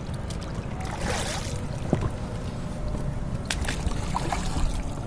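Water sloshing and splashing against the side of a wooden fishing boat as a large lakkha fish is hauled up alongside on a hand line, over a steady low rumble. A short splash about a second in and another around the middle.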